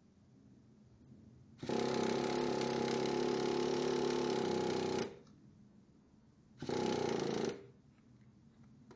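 Traxxas EZ-Start electric starter cranking a nitro RC engine in two bursts, a long one of about three and a half seconds and then a short one of about a second, with a steady whir and quiet between. The engine does not catch, despite a new glow plug, fresh fuel and no flooding.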